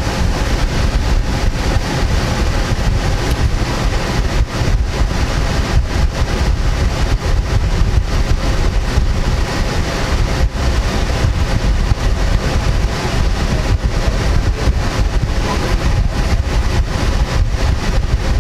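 Steady low noise inside a car with the driver's window open: the car idling and wind buffeting the microphone.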